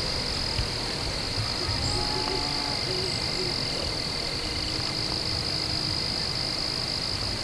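Steady high-pitched insect buzz over a low outdoor rumble, with a few faint short calls about two to three seconds in.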